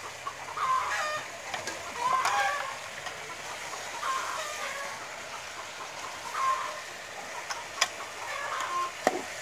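Chickens clucking on and off, in short calls spread through. Near the end come two sharp metal clicks as the cooking utensil knocks against the aluminium pot.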